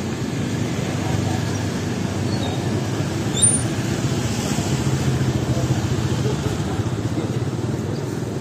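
Busy market-street ambience: small motorbikes and scooters puttering past at low speed, over a steady murmur of voices, with one brief sharp noise about three and a half seconds in.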